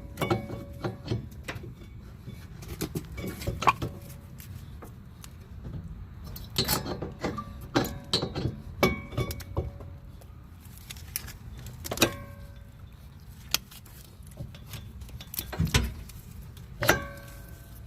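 Metal clinks, taps and knocks of hand tools and brake caliper parts being handled during a rear brake job, irregular throughout, some strikes leaving a brief metallic ring.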